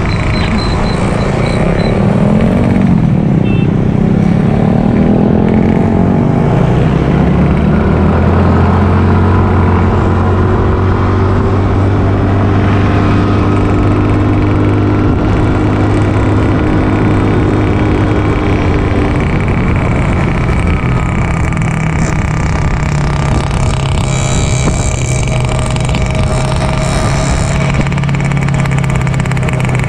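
Motorcycle engine running under way, heard from the rider's own bike, its pitch rising and falling as it speeds up and settles to a steady cruise.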